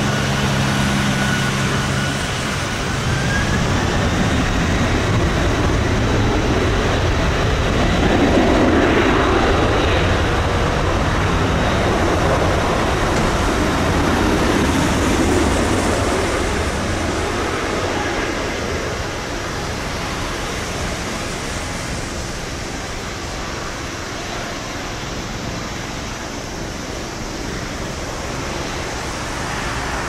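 Boeing 767 freighter's GE CF6-80C2 turbofan engines spooling up to takeoff thrust, with a whine rising in pitch in the first few seconds. Then the steady jet roar of the takeoff roll, louder for several seconds as the jet passes, on a rain-soaked runway through to rotation.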